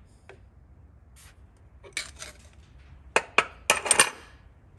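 Metal hand tools clinking and clattering against metal: a few light clicks about two seconds in, then two sharp clinks and a quick flurry of clinks near the end.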